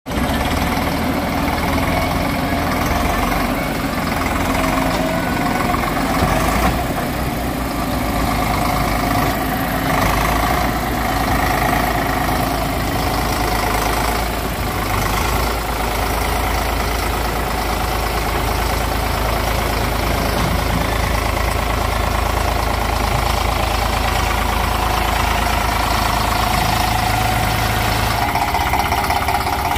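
Heavy diesel engines of a JCB 3DX backhoe loader and a tractor running steadily at work, a constant low drone with the engine note rising and falling under varying load. A few brief knocks stand out around the middle.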